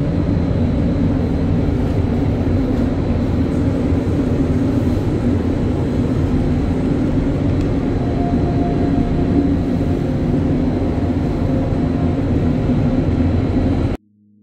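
A loud, steady mechanical running noise, heavy in the low end. It cuts in suddenly and stops abruptly near the end.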